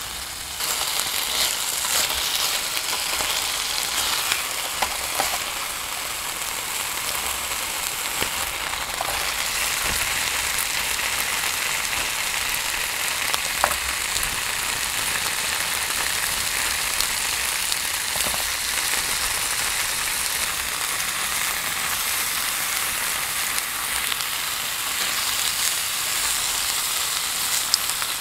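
Marinated meat sizzling and frying in a rectangular aluminium mess tin, with occasional light clicks of metal tongs against the tin.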